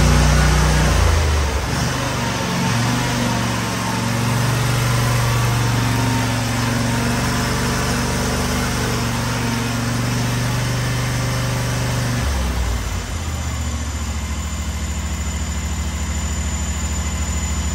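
Cub Cadet Pro Z 500 zero-turn mower's Kawasaki 850V V-twin engine running steadily. Its note shifts about a second in and again about two-thirds of the way through, as the engine speed changes.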